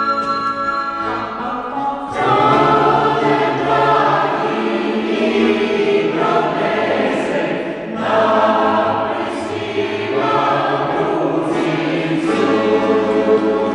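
Mixed choir of men and women singing in a large church, entering about two seconds in over sustained instrumental notes and carrying on in phrases with brief breaths between them.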